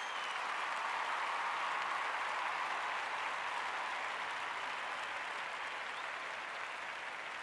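Crowd applause and cheering, a steady wash of clapping noise that swells in at the start and slowly fades.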